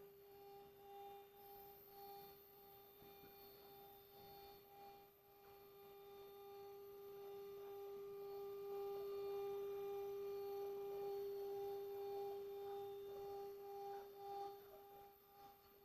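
The 5.5 kW water-cooled spindle of a CNC router for aluminium profiles, running with a steady pitched whine and a faint high whine above it. The whine swells a little louder midway and eases off again near the end.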